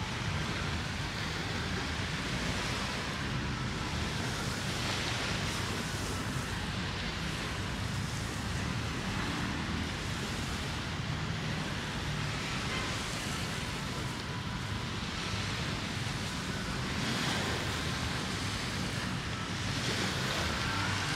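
Small sea waves washing up on the beach, a soft swell of hiss every few seconds, over a low rumble of wind on the microphone.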